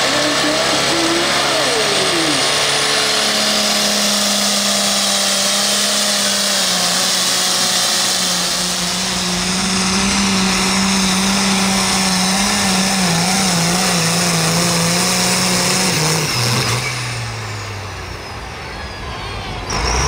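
Light limited super stock pulling tractor's turbocharged diesel engine running flat out under load through a pull. The pitch holds high and wavers, then drops and the sound eases off about sixteen seconds in as the throttle comes back.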